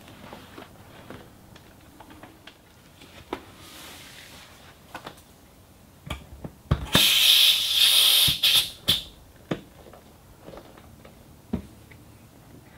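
Scattered clicks and knocks of things being handled, with a loud burst of hissing, rustling noise lasting about two seconds past the middle.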